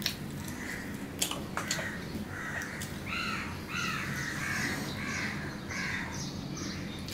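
A bird calling repeatedly, a quick run of arched calls through the second half. In the first two seconds there are a few sharp clicks of fingers working rice on a steel plate.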